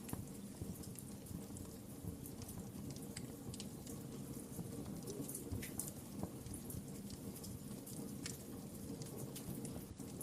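Wood fire crackling in a fireplace: a steady low rumble of burning with scattered sharp pops and snaps at irregular intervals.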